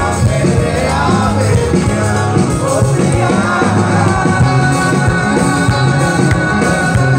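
Live rock band playing loud through the stage loudspeakers: a singer over electric guitars and a steady drum beat.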